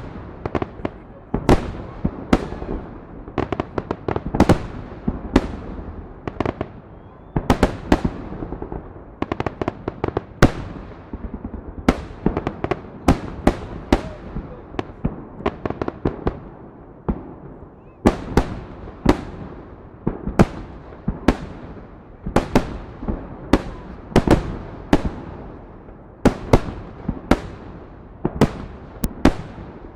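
Fireworks salute: an unbroken barrage of shell bursts, often several bangs a second at irregular intervals, each trailing off in a rumbling echo.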